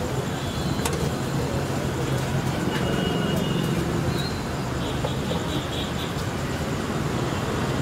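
Steady street-side traffic noise with a low hum underneath.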